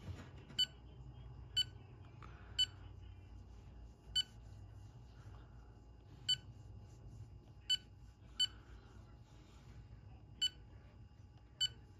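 AlgoLaser DIY KIT MK2 laser engraver's touchscreen control panel beeping at each tap: nine short, identical electronic beeps at uneven intervals as its menus are worked through.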